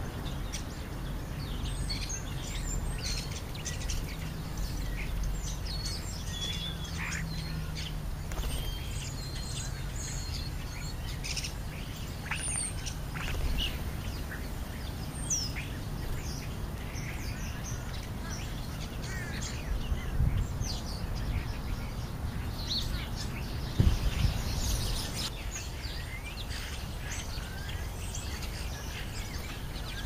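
Scattered short chirps and calls of European starlings and house sparrows at a feeding pile, over a steady low rumble. A brief thump comes about twenty-four seconds in.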